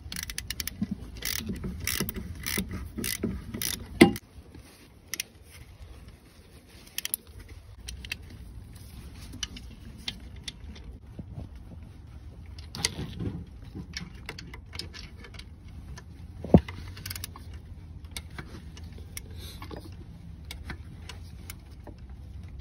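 Socket ratchet clicking rapidly as the alternator mounting bolts are run down, for about four seconds and ending in a sharp knock; then a few scattered clicks and another sharp knock about two-thirds of the way through.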